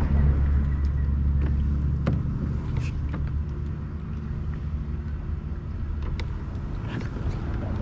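Low, steady rumble of vehicle traffic crossing the bridge overhead, louder in the first couple of seconds and easing off, with a few light clicks scattered through it.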